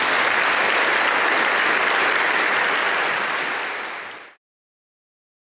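Audience applauding steadily, cut off abruptly about four seconds in.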